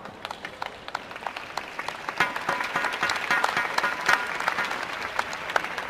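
Arena crowd clapping and cheering, with sharp individual claps that swell into a dense burst of applause about two seconds in.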